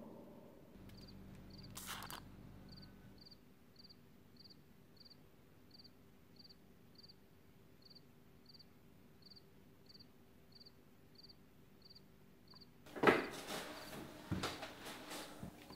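Crickets chirping steadily, about two high chirps a second. Near the end comes louder rustling and a few knocks of something being handled.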